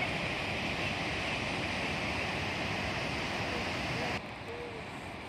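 Niagara Falls' falling water making a steady, even rushing roar; about four seconds in it cuts suddenly to a quieter, duller rush of the river rapids.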